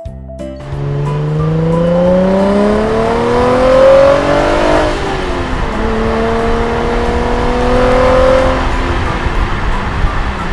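Sports car engine sound effect accelerating: the engine note climbs in pitch for about four seconds, drops as if shifting gear, then climbs again and settles into a steady run over a rumble of road noise.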